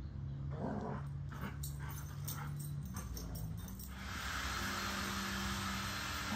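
Two Dalmatians play-fighting, with short growls, whines and yips during the first few seconds. A steady hiss comes in about four seconds in, over a low steady hum.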